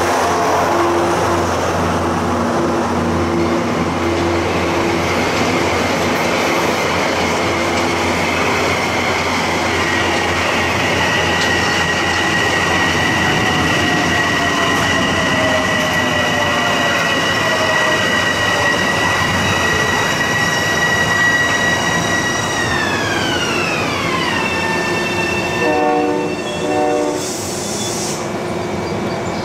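Metro-North Bombardier M7 electric multiple-unit train running along the far track, with wheel and rail noise and a high electric motor whine. The whine holds steady, then glides down in pitch about 23 seconds in.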